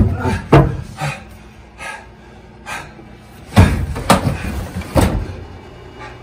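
A run of thumps and knocks against a front-loading laundry machine and its door, loudest at the start and again from about three and a half to five seconds in, with lighter knocks between.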